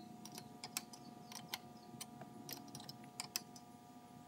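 Faint, irregular clicking of a hand ratchet wrench, several clicks a second, as the VANOS unit's mounting bolts are brought down a quarter turn at a time.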